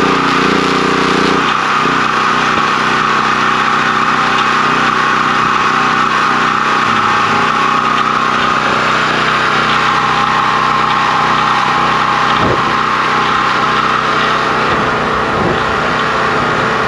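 Portable gas generator engine running steadily, its tone changing about a second and a half in as the welding arc stops.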